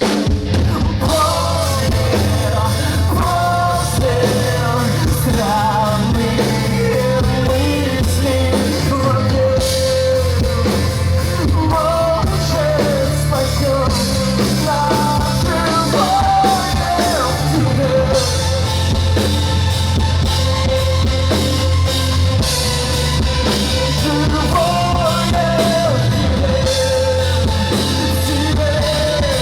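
Live rock band playing a song with drums, bass and guitars, with a man singing lead vocals. The band comes in at full level right at the start after a brief drop.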